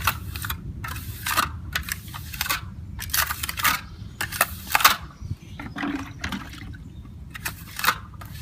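Hand float smoothing the wet surface of a freshly poured fibre-reinforced cement pothole patch: a series of short scraping swishes at irregular intervals.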